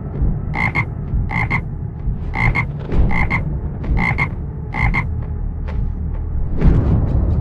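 Croaking calls, six of them, each two or three quick pulses, coming about once a second over a steady low rumble, which swells louder shortly before the end.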